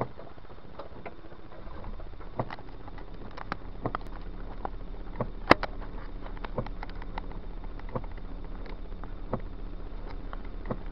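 Raindrops tapping irregularly on a car's roof and windshield, heard from inside the cabin, a few sharp ticks a second. Under them runs the steady low hum of the car, which grows a little fuller about two seconds in.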